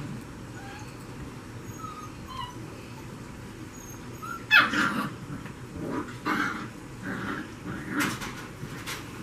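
Six-week-old beagle puppy giving a few faint, short, high whimpers, then louder cries from about halfway in.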